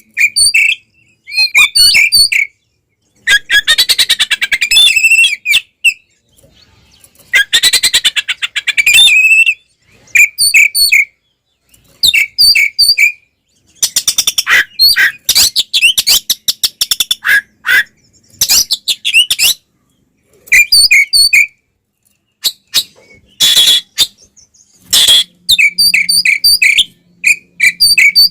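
Oriental magpie-robin (kacer) singing a loud, fast fighting-style song, the kind used as a lure to rouse other magpie-robins. Phrases of sharp whistled notes alternate with rapid chattering trains of repeated notes, broken by short silent gaps.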